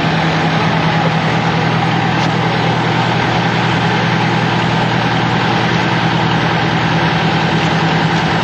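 Fire truck's diesel engine idling with a steady low hum.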